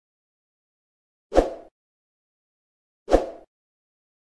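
Two short sound-effect hits on the animated end screen, about a second and three quarters apart. Each is a sudden thud-like pop that dies away within about a third of a second, with dead silence between.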